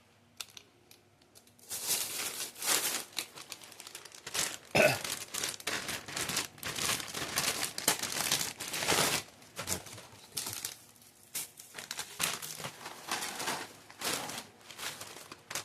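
Plastic snack wrappers crinkling and rustling as they are handled, on and off after about two seconds of quiet.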